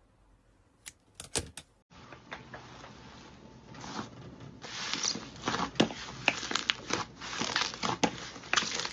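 Slime being pressed and squished by hand: irregular sticky clicks and crackles, a few sharp clicks first, then denser and louder crackling from about two seconds in.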